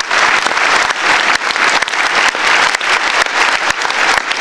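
Audience applauding in a hall: dense, even clapping, with single sharp claps standing out from nearby hands.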